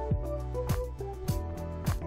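Background music with a steady drum beat over a bass line and melody.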